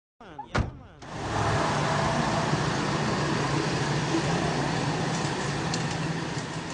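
A sharp click, then a steady engine-like running sound with a constant low hum under a rushing noise, starting about a second in and beginning to fade near the end.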